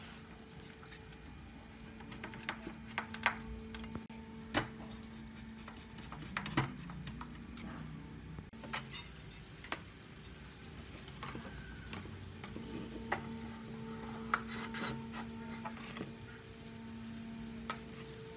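Hand-work noises from taking apart an old CRT television on a wooden bench: scattered clicks, taps and rubbing as wires and plastic parts are handled. A faint steady hum sits under them, fading in and out.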